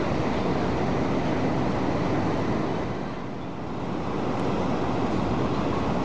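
Wind buffeting the microphone: a steady rushing rumble that eases briefly around the middle, then returns.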